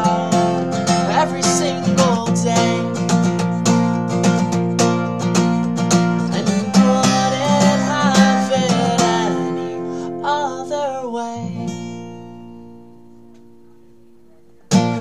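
Strummed acoustic guitar and a singing voice finishing a song, fading out about twelve seconds in; a short loud sound comes near the end.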